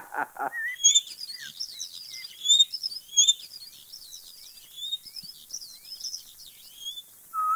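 Several small birds chirping and twittering, with many short, high, quickly gliding calls overlapping.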